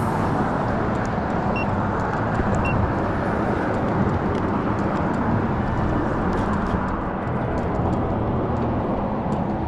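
A boat motor running steadily, with a rushing noise over it.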